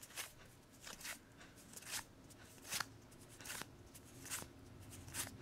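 Magic: The Gathering cards from a booster pack being flipped through by hand, each card slid from the front to the back of the stack with a faint papery swish or snap, roughly once a second.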